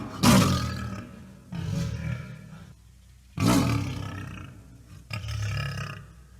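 Tiger snarling and growling: four separate growls, each starting suddenly and trailing off over about a second, the first and third the loudest.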